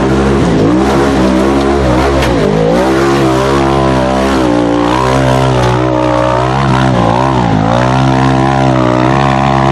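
Side-by-side UTV engine running hard at high revs, starting abruptly. The revs dip briefly and climb again twice.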